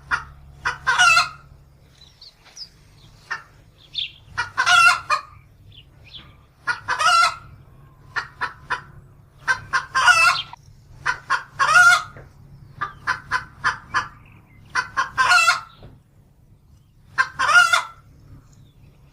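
Chickens calling: runs of quick short clucks, each ending in a longer drawn-out call, repeating every couple of seconds.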